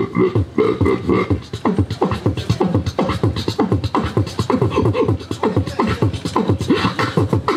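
Human beatboxing into a handheld microphone: a fast, dense run of vocal drum sounds with deep pitched bass sounds underneath.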